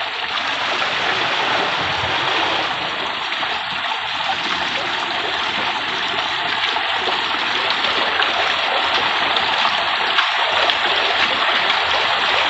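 Water pouring and splashing off an old overshot water wheel fed by a wooden launder: a steady rushing splash.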